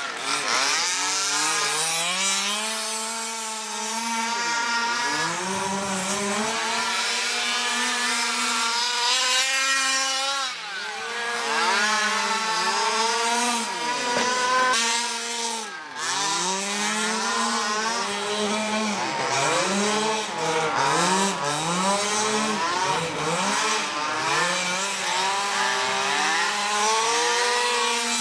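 Small two-stroke petrol engines of several quarter-scale RC race cars running together, each revving up and easing off again and again, their pitches rising and falling and overlapping.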